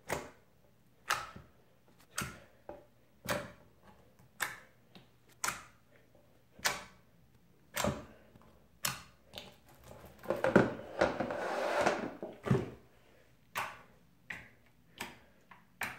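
Clear slime being poked with fingertips, each poke giving a sharp click or pop, about one a second. About ten seconds in comes a longer, louder squishing stretch as the slime is handled, then the single pokes resume.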